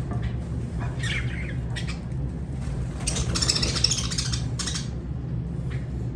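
Lovebird calling: short chirps about a second in, then a burst of harsh squawking chatter from about three seconds that lasts a second and a half. A steady low hum runs underneath.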